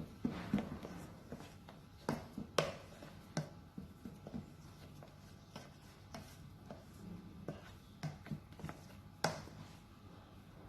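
Kitchen utensils against a bowl: scattered light taps and clicks with some soft scraping, the sharpest taps about two to three and a half seconds in and again near nine seconds.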